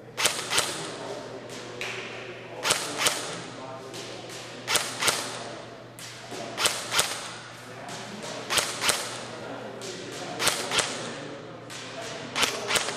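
Double Eagle M89 UMP airsoft gun shooting at a distant target, its sharp shots coming in close pairs about every two seconds.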